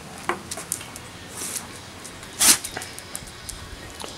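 A dog sniffing along concrete: short rushes of breath, the loudest one about two and a half seconds in, among scattered light ticks.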